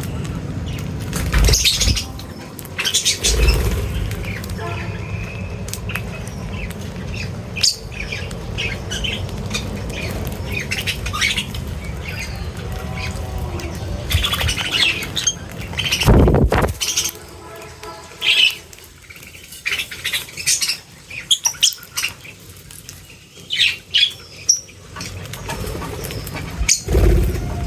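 Birds at a feeding spot chirping and squawking in short, scattered calls, with wing flaps. A single loud burst of noise comes about sixteen seconds in.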